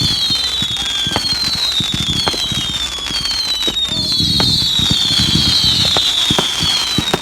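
Fireworks going off: a string of shrill whistles, each falling in pitch over about a second and overlapping the next, with sharp cracks and pops scattered through.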